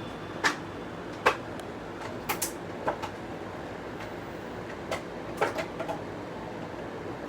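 Scattered sharp clicks and knocks, about nine of them, some in quick pairs, over a steady background hiss.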